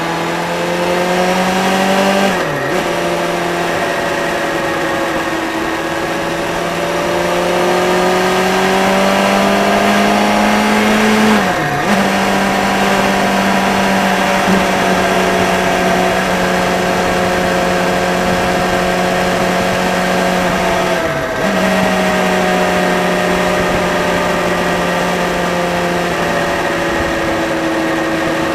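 Motorcycle engine running under way, its note climbing slowly and dipping sharply three times as the rider changes gear, over steady wind rush on the camera.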